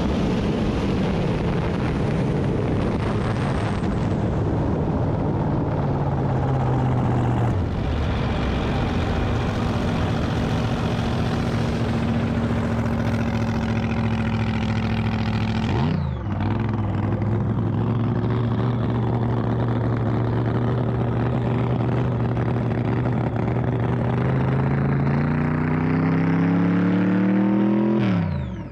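Drag boat's engine running at low speed on the water: its note falls over the first few seconds, holds steady with a brief sharp dip about halfway, rises over the last few seconds, then stops abruptly near the end.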